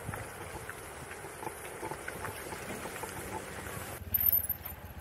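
Off-road electric skateboard rolling over rough ground, with low rumble and scattered crunches from the wheels and wind on the microphone. The sound changes abruptly about four seconds in, with a few louder knocks.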